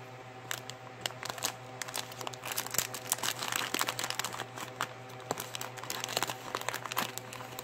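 A clear plastic candy packet of gummy dinosaurs crinkling as fingers handle it and reach inside, a run of small irregular crackles.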